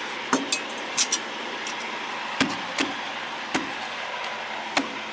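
A hammer striking a jammed metal part of the trailer rig: about seven sharp, irregularly spaced metallic blows, each with a short ring.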